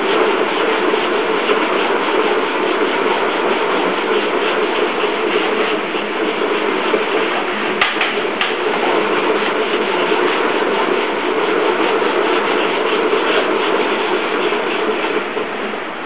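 Dog treadmill running steadily with a bully-breed puppy trotting on its belt, belt and paws making a fast, even clatter. A couple of sharp clicks about eight seconds in.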